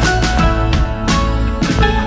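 Background music with a steady beat and melody notes.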